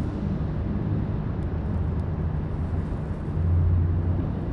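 Low, steady engine rumble that swells briefly about three and a half seconds in.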